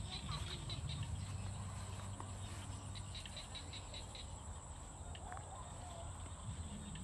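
Rice-field ambience: a steady high-pitched insect drone, with two short runs of rapid chirps, about seven a second, near the start and about three seconds in, over a low rumble.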